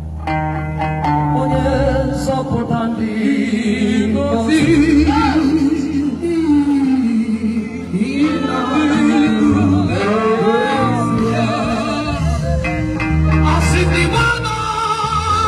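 A woman singing gospel over a microphone, her voice wavering with vibrato, over loud amplified backing music with a steady bass line.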